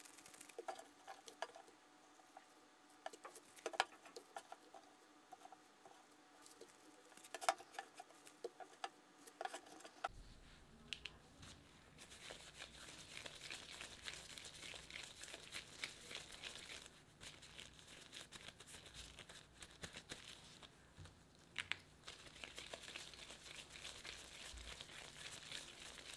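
Faint handling sounds of cookie dough being portioned and shaped: scattered light taps and plastic-wrap crinkles at first, then from about ten seconds in a denser, steady rustle of disposable gloves as hands roll and press chocolate-pecan dough into balls.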